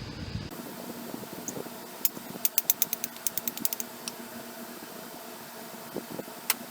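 A quick run of sharp clicks, about a dozen in under two seconds, with one more click near the end, over a steady hum.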